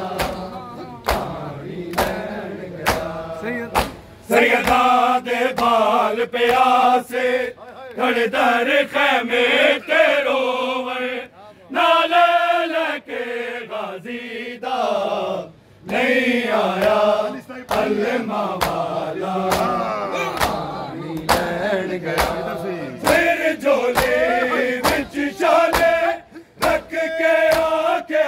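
A male voice chanting a noha (Shia lament) in long, wavering sung phrases, with a crowd of men slapping their bare chests in matam, the sharp hand slaps landing about one to two times a second.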